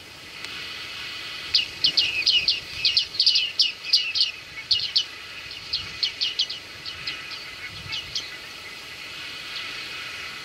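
Bearded reedlings calling: a quick series of short, sharp, high 'ping' calls. They start about a second and a half in, come thick and fast for a few seconds, then thin out and stop about eight seconds in, over a steady high hiss.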